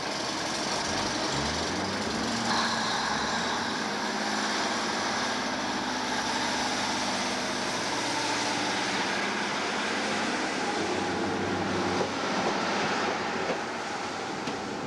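Diesel multiple unit's underfloor engine revving up about a second in, then running steadily as the train pulls away from the platform and gathers speed.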